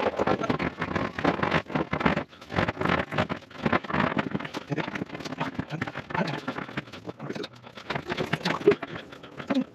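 Irregular knocking, scraping and rustling of someone clambering about on a jon boat's slatted deck, hands and body bumping and sliding on it.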